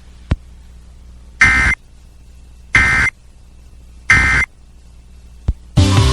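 Three short buzzing bursts of Emergency Alert System SAME data tones, about 1.3 s apart: the end-of-message signal that closes a broadcast severe thunderstorm warning. Another sound starts abruptly near the end.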